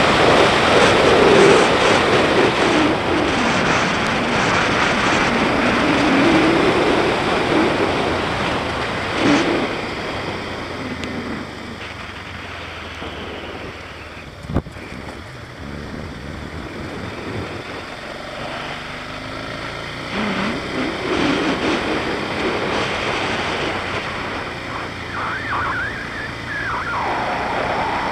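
BMW G650GS single-cylinder motorcycle engine running under way, its pitch rising and falling with the throttle, under a steady rush of wind noise. The ride eases off and gets quieter around the middle, with a single sharp click about halfway, and the engine pitch climbs again near the end.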